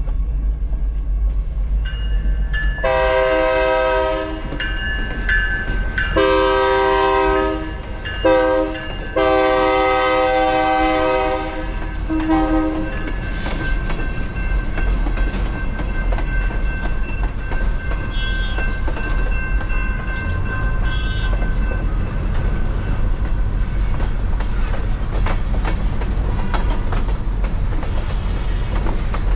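Train horn sounding two long blasts, a short one and a final long one: the standard grade-crossing signal. After that the train passes with a steady rumble and wheels clicking over the rail joints.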